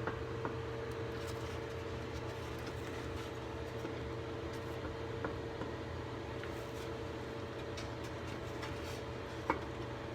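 Spoon stirring thick cornmeal mush in a pot, with faint scrapes and light ticks and one sharper click against the pot near the end, over a steady appliance hum.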